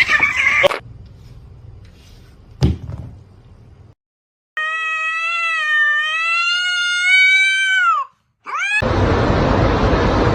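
A cat's long, drawn-out meow lasting about three and a half seconds, wavering in pitch and falling away at the end, followed by a short rising call. A brief call and a knock come at the start, and a steady noisy rumble sets in near the end.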